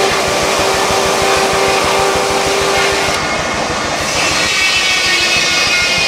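Steam-driven sawmill machinery running, with the steady whine of the edger saws trimming a slab; the pitch of the whine changes about three seconds in.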